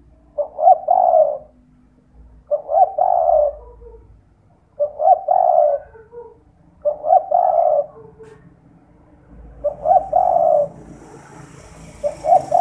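Spotted dove (derkuku) cooing its 'kuk 2' song: a repeated phrase of about a second, given six times at roughly two-second intervals.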